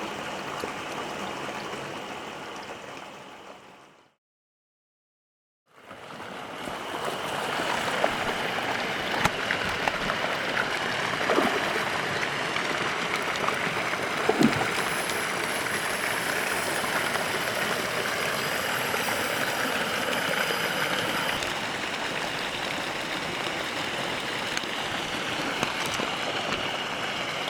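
Steady rushing of running water, like a stream or inflow pouring into a pond. It fades out to silence about four seconds in and comes back about two seconds later.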